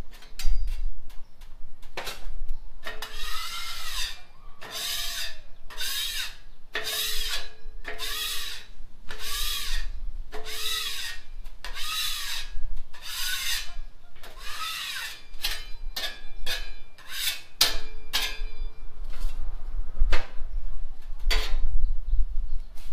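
A hand tool scraped back and forth across a Blackstone griddle's flat steel cooktop: about a dozen rasping strokes roughly a second apart, each with a ringing squeal, then a few quicker short strokes and a couple of sharp knocks near the end.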